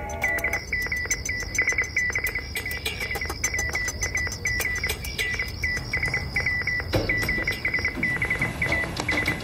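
Crickets chirping in a steady repeating rhythm, with a second, higher insect trill held through most of the stretch.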